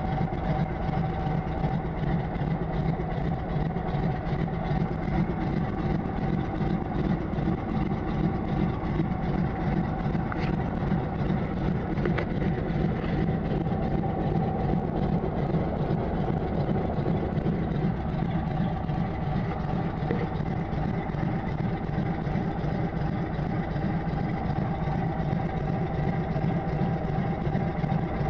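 De Havilland Beaver floatplane's engine and propeller running steadily at low power as it taxis on the water, heard from inside the cockpit. The drone holds an even level with no run-up.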